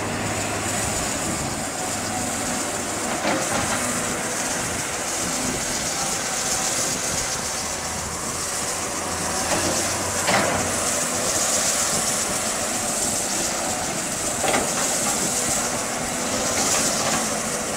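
Caterpillar 320D hydraulic excavator's diesel engine running steadily under load as it digs, with a constant hiss and a few sharp knocks spread through.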